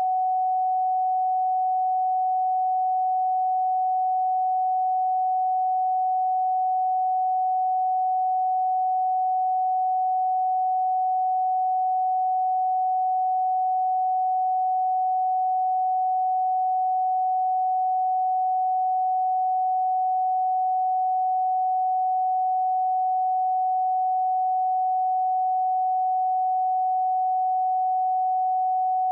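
A single electronically generated pure tone, a sine wave held at one steady pitch and level with no change.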